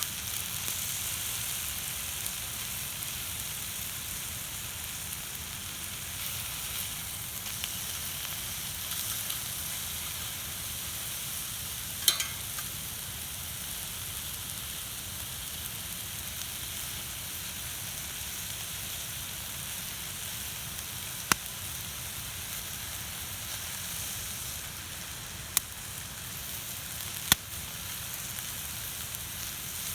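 Food sizzling steadily on a steel griddle plate over a campfire, broken by a few sharp clicks or taps.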